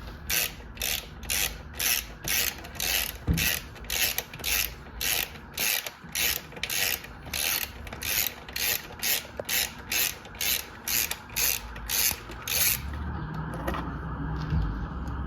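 Ratchet driving a 5 mm Allen bit, loosening a bolt: a short burst of pawl clicks on each back-swing, about two strokes a second, stopping about 13 seconds in.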